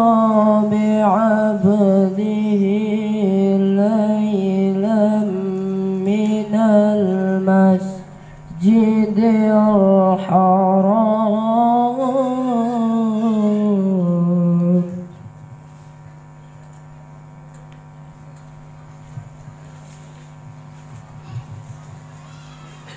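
A boy's voice chanting a melodic recitation into a microphone over a loudspeaker, with long held, wavering notes and a short breath pause about eight seconds in. The chanting stops about fifteen seconds in, leaving a steady hum from the sound system.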